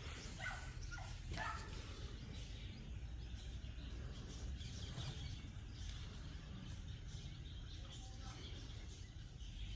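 Outdoor rural ambience: a steady low rumble with faint bird chirps over it.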